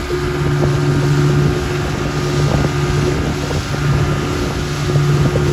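Outboard motor running at a steady pitch, driving an open boat at speed, with wind buffeting the microphone.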